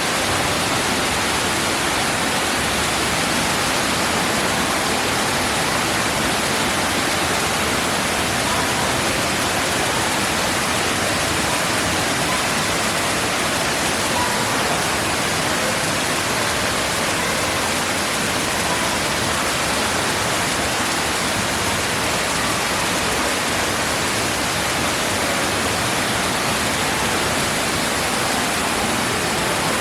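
Indoor artificial waterfall: water falling and rushing steadily into a pool.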